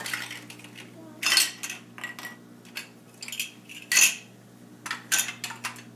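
Hard plastic game pieces clacking and clattering as they are picked up and set into place, a run of sharp clacks with the loudest about a second and a half and four seconds in.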